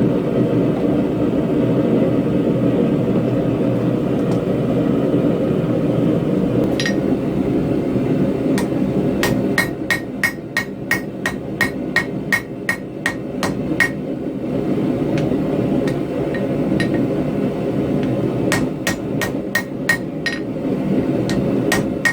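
Hand hammer striking hot steel on an anvil, forging a tomahawk head from railroad track anchor steel, each blow ringing. The blows come in runs of about three a second, with a pause between runs, over a steady low rushing noise.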